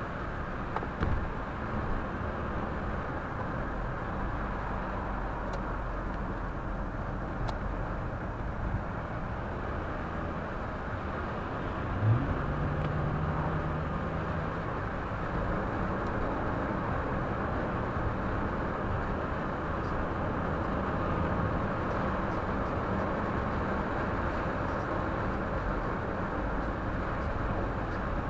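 Car driving, heard from inside the cabin: a steady mix of engine and tyre noise, with the engine note rising and getting louder about halfway through.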